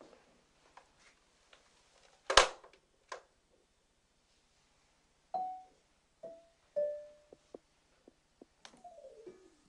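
A loud sharp knock about two seconds in, then a lighter click. Then single mallet notes on a xylophone, three in turn, each lower than the last, and a quick run down the keys near the end.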